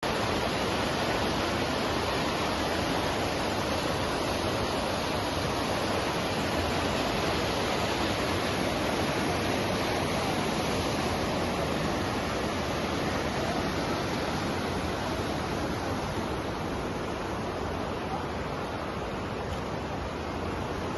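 Fast-flowing water rushing steadily, easing a little in the last few seconds.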